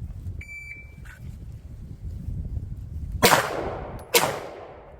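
A shot timer beeps once, briefly, as the start signal. About three seconds later a pistol fires twice from the draw, roughly a second apart, each shot trailing a long echo.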